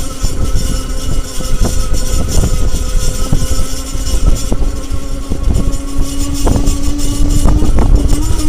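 Lectric e-bike motor running with a steady screeching whine, which rises a little in pitch about six seconds in, over a heavy low rumble.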